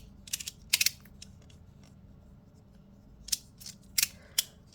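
Plastic plates of a 3D-printed magnetic slider fidget toy, the Tectonix Ultra, snapping into place with sharp clicks as it is pushed. There are a few clicks in the first second, a pause of about two seconds, then four more clicks near the end.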